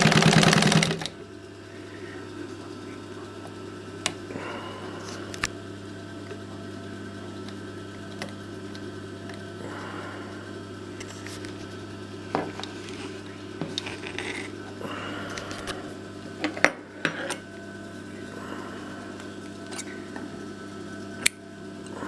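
Singer 31K15 industrial sewing machine stitching for about the first second, then stopping. A steady low hum carries on, broken by scattered sharp metallic clicks and clinks.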